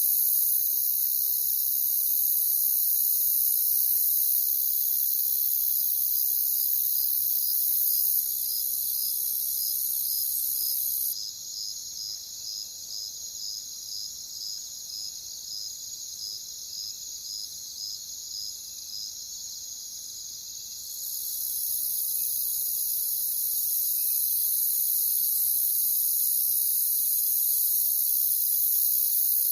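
A chorus of crickets trilling steadily, with a single cricket chirping in a regular rhythm of about two chirps a second through the middle. A higher, thinner trill drops out for about ten seconds midway, and the chorus is quieter while it is gone.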